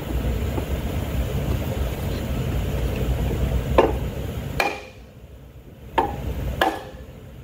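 A few sharp knocks from a hammer and a wooden block set against the blade-bearing shaft of a Zamboni 546 ice resurfacer, as the part is pounded down. There are four knocks in the second half, over a low rumble that drops away about five seconds in.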